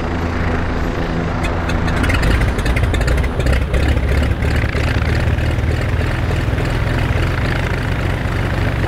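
Cessna 210's six-cylinder piston engine and propeller running at low ground power, a steady low drone that grows heavier about two seconds in.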